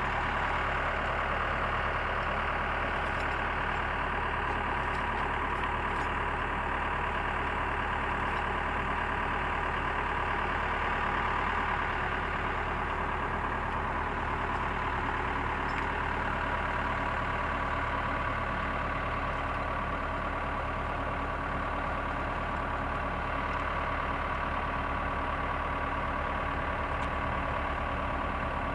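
Backhoe engine running steadily.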